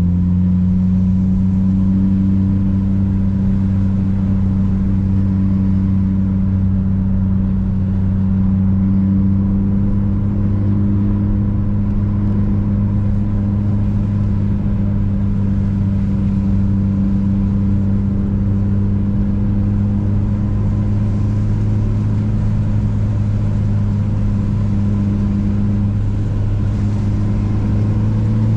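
Mitsubishi Lancer Evolution VIII's turbocharged 4G63 inline-four running at steady, constant revs while cruising, with the engine note held at one pitch throughout.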